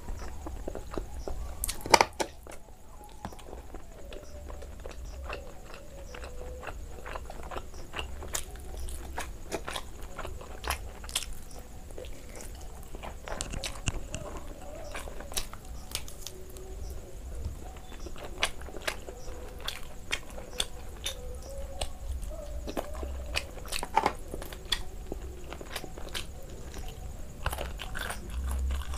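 Close-up eating sounds of a person biting and chewing curried chicken off the bone: many small wet clicks and smacks, with one sharp loud click about two seconds in.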